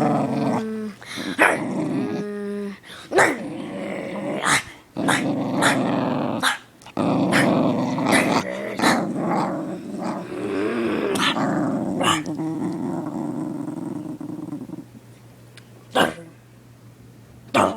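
A dog growling steadily, broken again and again by short sharp noises. The growl stops about fifteen seconds in, and a few sneezes follow near the end.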